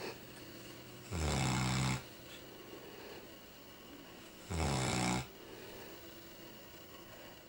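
Newfoundland dog snoring in its sleep, like a pig: two loud snores about three seconds apart, each under a second long, with quieter breathing between.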